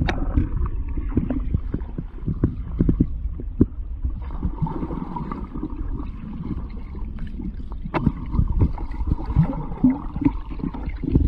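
Muffled underwater rumble and gurgling from a camera held under the water while a dog dives and paddles, with many small bubble pops and knocks.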